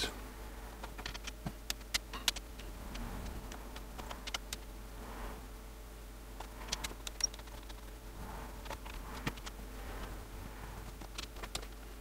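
Scattered light clicks and faint scraping as small star-head screws are turned out of a Fein MultiMaster multitool's plastic casing with a T15 star key.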